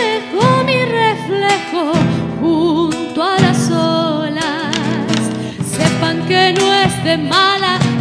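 Latin American folk music played live by a trio: a woman singing with wide vibrato over acoustic guitar and drums struck with sticks. The full band comes in loudly right at the start.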